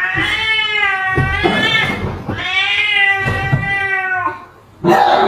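Domestic cat yowling: two long drawn-out calls of about two seconds each, rising and then falling in pitch, followed near the end by a short, harsher cry.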